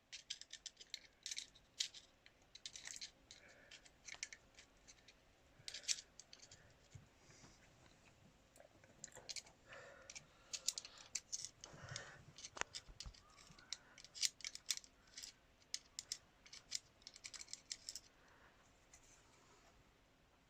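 Irregular light metallic clicks and scrapes of small tools working a valve collet into place on an engine's valve stem, with a duller knock about twelve seconds in.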